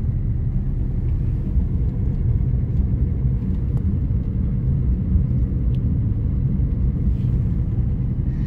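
Car cruising steadily in third gear, heard from inside the cabin: a steady low rumble of engine and road noise.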